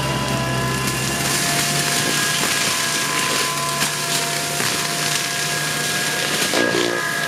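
Forestry mulcher at work: its engine runs steadily under load while the mulching head grinds through brush and wood. There is a dense rush of chipping noise with scattered sharp cracks.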